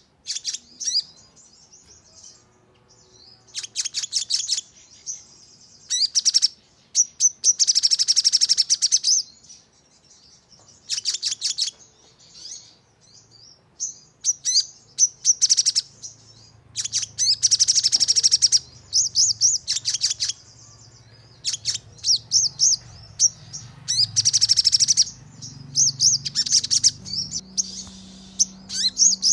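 Sogon songbird singing in rapid high-pitched bursts of fast repeated notes, the sharp 'nembak' song, about a second each with short pauses between.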